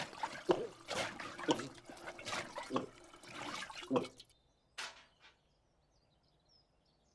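Liquid sloshing and gulping sounds in quick repeated bursts, about two a second, for roughly four seconds, then near silence broken by one short noise and faint high chirps.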